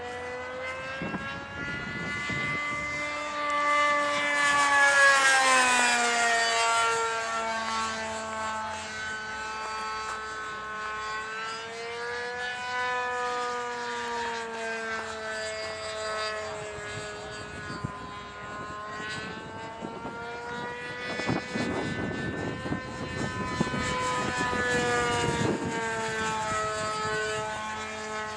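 Radio-controlled model airplane's engine running with its propeller overhead, its pitch rising and falling as the plane passes and turns. The loudest pass is about five seconds in and falls in pitch as it goes by. Wind buffets the microphone for a few seconds about three-quarters of the way through.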